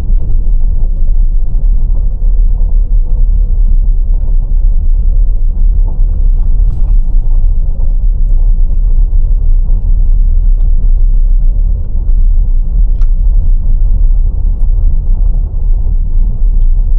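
Loud, steady low rumble with no clear pitch and no separate events.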